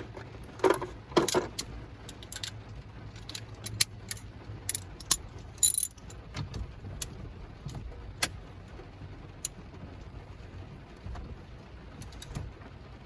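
Metal hand tools clinking and clicking irregularly: a socket, extension and ratchet being handled and fitted onto a steering-wheel centre bolt, with a louder clatter about a second in and another just before the middle.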